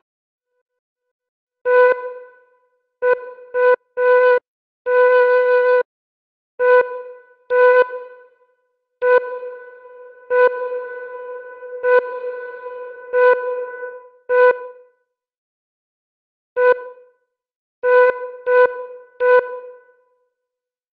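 Mellotron MkII flute sample from the Redtron plug-in: the same single note played again and again in short presses, about sixteen times, with silences between. Many notes trail off in a reverb tail whose length changes from note to note as the reverb settings are adjusted.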